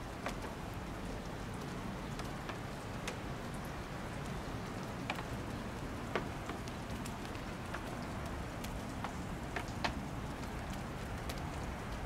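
Steady rain falling, with individual drops ticking sharply and irregularly on a nearby surface.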